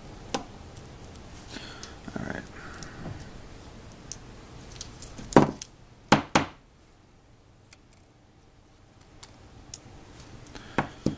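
Close handling of small tools and phone parts: scattered light clicks and taps, with three louder knocks a little past halfway, then a quieter spell before a few more clicks near the end.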